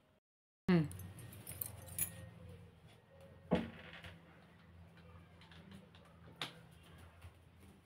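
Quiet room with a steady low hum, broken by two short sounds falling in pitch, one just after the start and one about three and a half seconds in, and a single light clack about six and a half seconds in as a small plastic toy is set down on a hard floor.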